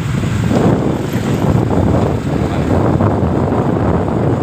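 Wind rushing over the microphone, with a motorcycle engine and road noise running steadily underneath, as heard while riding.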